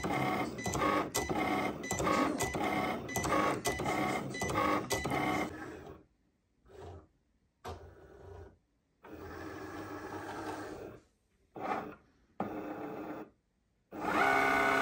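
Cricut cutting machine's motors whirring as the carriage and mat move: a stuttering run of quick moves for the first five seconds or so, then shorter runs with pauses between, and a steady run near the end. It is scanning its registration marks for print-then-cut calibration, then starting to cut a sticker sheet.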